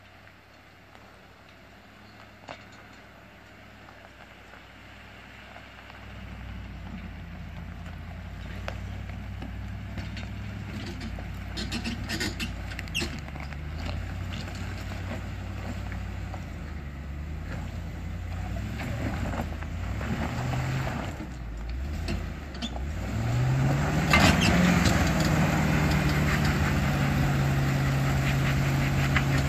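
Land Rover Discovery II engine pulling up a steep rocky slope, growing louder as it approaches. About three quarters of the way through it revs up, then holds a steady higher pitch. Scattered crunching comes from the tyres on loose rock.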